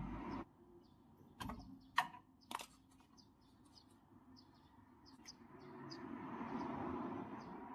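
A few sharp clicks and taps from tools handled on a freezer's copper refrigerant tubing, three close together in the first three seconds, then a soft rubbing noise swelling near the end, with small birds chirping faintly in the background.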